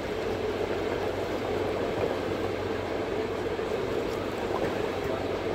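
Steady drone of a fishing boat's engine running, with wind and sea noise.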